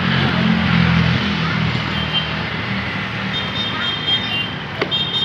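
Road traffic: a steady wash of passing vehicles, with a vehicle engine humming loudest in the first second or so. Faint high tones from about halfway and a short click near the end.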